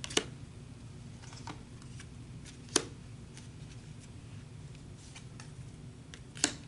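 Tarot cards being handled: cards drawn from a deck and laid down, making a few scattered sharp clicks and taps. The loudest comes nearly three seconds in, with another near the end.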